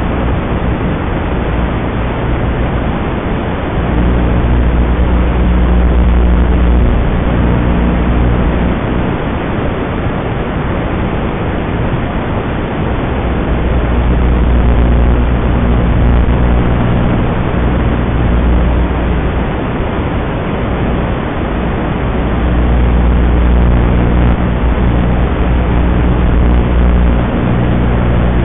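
Steady loud hiss like radio static, with a low droning hum that swells up for several seconds at a time, three times.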